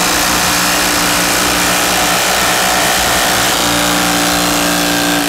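Two Makita cordless impact drivers, an 18-volt and a 40-volt XGT, run together at their highest speed setting, driving long Torx screws into a timber beam. The sound is a loud, steady hammering clatter.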